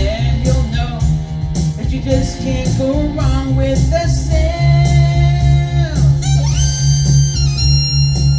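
Yamaha Genos arranger keyboard playing a rock backing with a steady beat, bass and guitar, under a lead melody. The lead holds one long note that bends down about six seconds in, and high stepped tones rise near the end.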